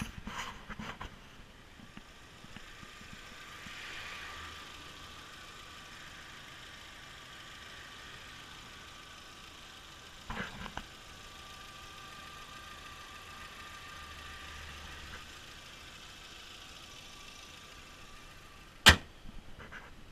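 Volkswagen New Beetle's 2.0-litre four-cylinder engine idling steadily. A car door shuts at the start, there are a couple of small knocks about halfway, and the bonnet slams shut near the end, which is the loudest sound.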